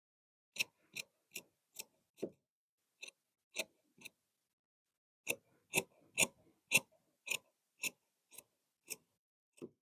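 Tailor's shears snipping, a string of sharp clicks about two a second, in three runs with short pauses between.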